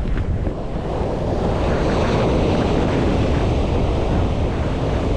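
Ocean surf washing in under strong wind buffeting the microphone; the rush swells fuller about a second and a half in.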